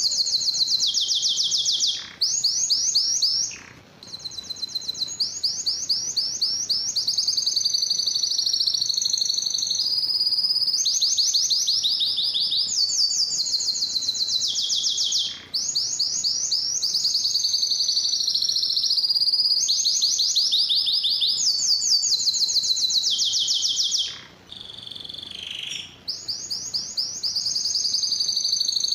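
Male canary singing: long, high rolling phrases of rapidly repeated notes, one trill running straight into the next, broken by a few short pauses.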